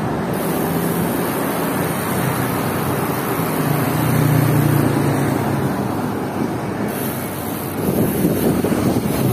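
Road traffic noise and wind on the microphone during a bicycle ride, with a motor vehicle's low engine drone swelling about four seconds in and then fading as it passes.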